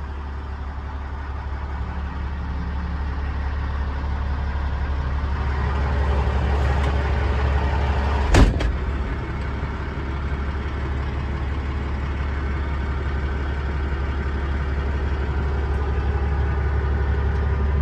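Caterpillar 3406 inline-six diesel idling steadily, with a single sharp knock about eight seconds in.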